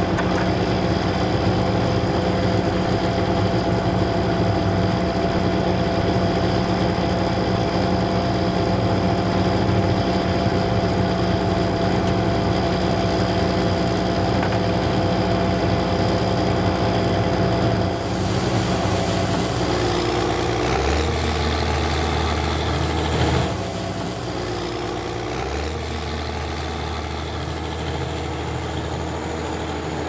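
Case IH 2188 combine harvester's six-cylinder diesel engine running steadily, with a faint steady whine over it. About two-thirds of the way through, the sound changes and then runs a little quieter, with a low hum underneath.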